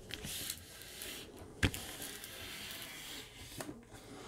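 Hand sliding and rubbing over the plastic film covering a diamond painting canvas, a soft rustle as a tape measure is laid across it, with one sharp tap about one and a half seconds in.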